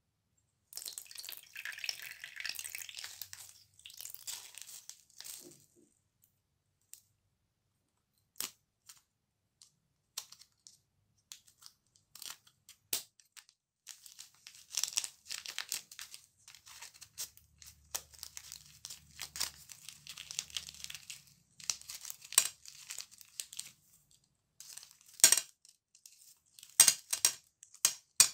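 Slime squeezed from a plastic piping bag and worked by hand into foam beads: crinkling plastic and scattered dry crackles and clicks. The sounds are busy for the first few seconds, sparse for a while, then busy again through the rest.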